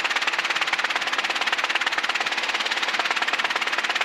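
Robinson R22 Beta II helicopter's main rotor and piston engine running steadily, heard through the headset intercom as a rapid, even pulsing hum.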